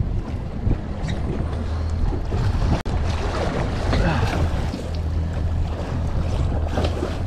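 Outboard boat engines idling with a steady low hum, under wind on the microphone and the wash of open water.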